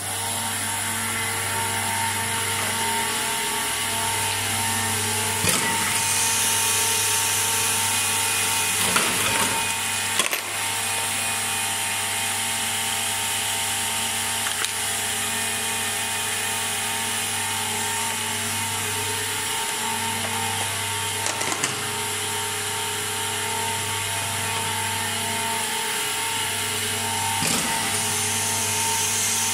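Freshly overhauled Bizerba GLM-I weigh-price labeller running, its conveyor belt drives giving a steady mechanical hum that starts abruptly. A few sharp clicks from the mechanism come through now and then.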